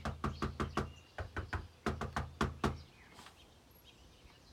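Rapid knocking on a wooden door, about five or six raps a second in two or three quick runs, stopping under three seconds in.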